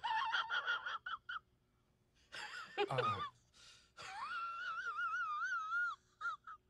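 A man making high-pitched squealing and whimpering noises instead of words: short squeaks at first, one that drops steeply in pitch about three seconds in, then a long wavering wail of about two seconds and two brief squeaks.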